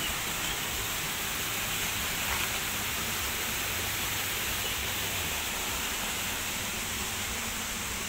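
Steady rush of water flowing through a stone-walled irrigation channel.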